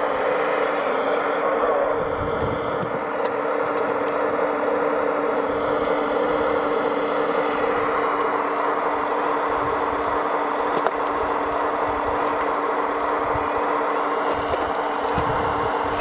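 Radio-controlled model vehicle running steadily: an even motor noise with two held humming tones.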